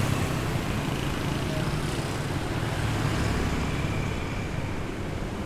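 Street traffic: a steady rumble of vehicle engines and tyre noise from passing cars and motorbikes, easing a little near the end.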